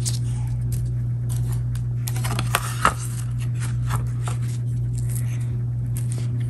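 Scattered small clicks, taps and scrapes of a small picture frame being handled as a trimmed paper print is fitted into it, over a steady low hum.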